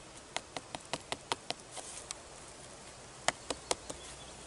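Fingers tapping and rubbing a hard bracket fungus on a birch log, making light, sharp clicks: about nine over the first two seconds, then a quick run of four more a little after the middle.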